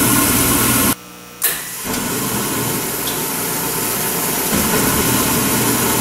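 Converted Beckett oil burner of a waste-oil furnace running just after ignition, a steady roar with a low hum. It cuts out for about half a second about a second in, then resumes.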